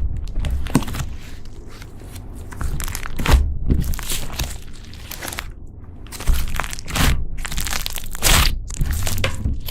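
Slime being squeezed and kneaded by hand, making irregular crunching and crackling with several louder squelches.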